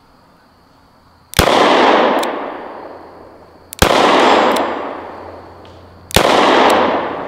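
Three shots from a Kimber K6s snub-nosed revolver, evenly spaced about two and a half seconds apart, each followed by a long echo that dies away over about two seconds.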